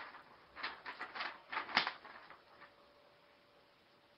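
Rustling and scraping of a cardboard shipping package and its paper contents being handled, a handful of short crinkly bursts about a second in.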